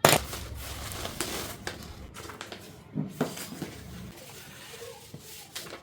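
Cardboard box and paper packaging being handled: rustling with scattered knocks and clicks, starting with a sudden loud knock.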